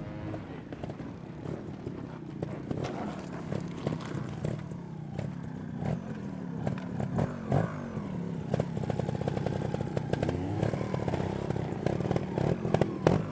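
Trials motorcycle engine running at low speed and being blipped with the throttle, its pitch repeatedly rising and falling in short revs. There is a spell of even, rapid pulsing at low revs about two-thirds of the way through, and a few sharp knocks along the way.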